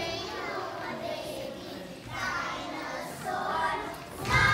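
A group of young children singing together. Near the end, louder music with a heavy low beat comes in.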